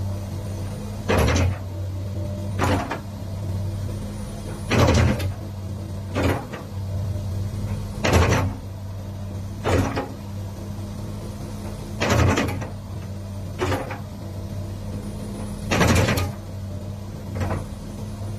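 Komatsu PC220-8 hydraulic excavator's diesel engine running steadily as the arm and bucket are worked. About ten short, sharp bursts of hydraulic and mechanical noise sound over it, one at each movement. They come in pairs about a second and a half apart, a pair roughly every four seconds.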